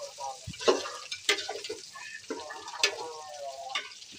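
Metal spoon stirring potato and aubergine pieces in an aluminium pot, clanking sharply against the pot about four times, with frying in the pot beneath.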